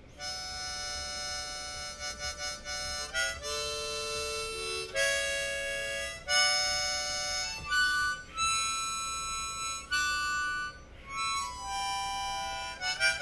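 East Top diatonic harmonica in the key of D, played as a series of held chords that change every second or so, with a few quick short notes about two to three seconds in.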